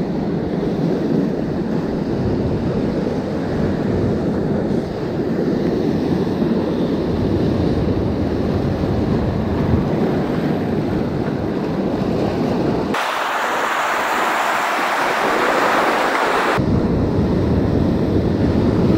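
Ocean surf washing against rocks, mixed with wind buffeting the microphone as a steady low rumble. For a few seconds near the end, the rumble cuts out abruptly and a brighter hissing rush takes over, then the rumble returns just as suddenly.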